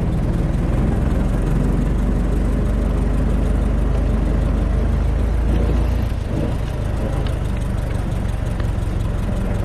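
1920 Ford Model T truck's four-cylinder flathead engine running steadily while the truck is driven, heard from the seat. The low rumble eases slightly about six seconds in.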